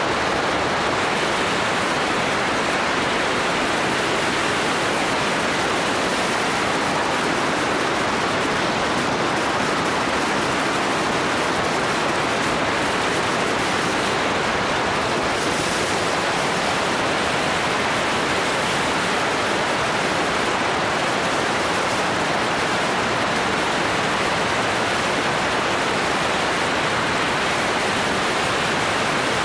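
Steady rush of wind on the microphone of a camera mounted on a moving motorcycle, with no clear engine note standing out.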